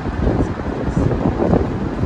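Wind buffeting the microphone: a rough, uneven low rumble that swells and dips.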